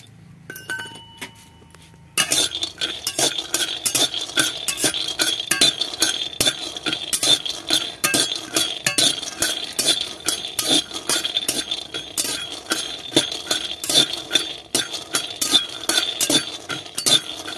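Metal spatula scraping and stirring raw peanuts around a hot, dry metal karahi as they roast: a fast, continuous run of scrapes, clinks and rattling nuts, with a steady ringing note from the pan. It starts about two seconds in.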